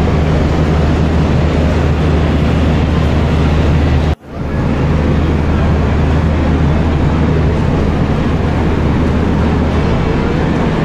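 A train's diesel engine idles at a railway platform as a steady low drone under general platform noise. The sound drops out for a moment about four seconds in.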